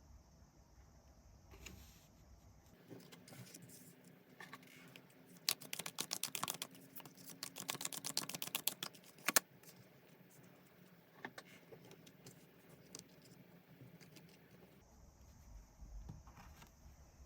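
Tarot cards being shuffled and handled: a run of quick, crisp card clicks about five seconds in that ends with a sharper snap near the middle, with scattered softer card sounds before and after.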